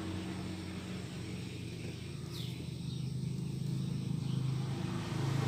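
Background ambience: a steady low mechanical drone, engine-like, that grows louder toward the end, with one faint high chirp about two and a half seconds in.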